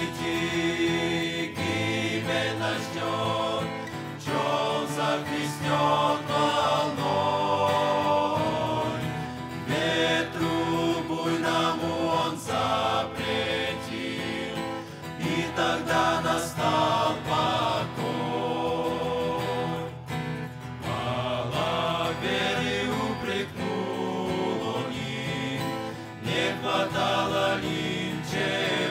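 Male vocal group singing a Russian-language hymn in harmony, accompanied by acoustic guitar.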